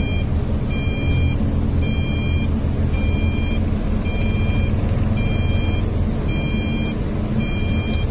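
A dump truck's electronic warning beeper sounds about once a second, each beep a short high chord of several tones. Under it runs the steady rumble of the Hino 500's diesel engine.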